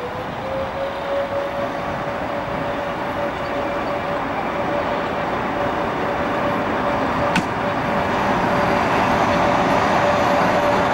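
DB Class 103 electric locomotive hauling coaches towards the listener, growing steadily louder. It makes a whine that rises slightly at first and then holds at one pitch. There is a single sharp click about seven seconds in.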